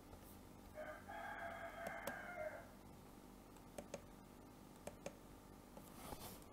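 A single faint, drawn-out call, about two seconds long, starting about a second in, followed by a few soft clicks of a computer mouse.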